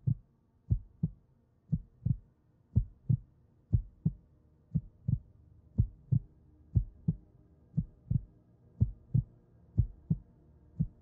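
Slow, steady heartbeat: low lub-dub double thumps, the two beats of each pair about a third of a second apart, repeating about once a second.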